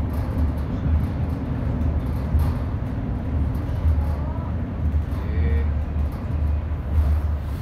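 ED9M electric multiple unit running along the line, heard from inside the carriage as a steady low rumble. Faint indistinct voices can be heard now and then, mostly around the middle.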